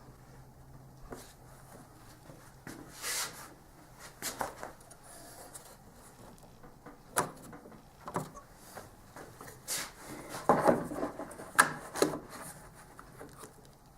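Wooden pieces and a clamp being handled and positioned: scattered light knocks, taps and rubbing, busier and a little louder in the second half.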